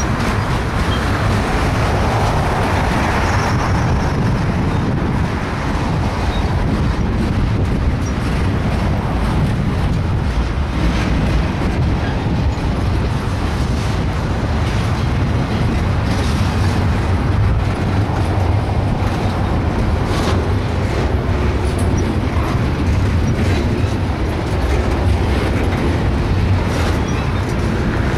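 Double-stack container train's loaded well cars rolling past, with a steady rumble of steel wheels on the rails and scattered faint clicks.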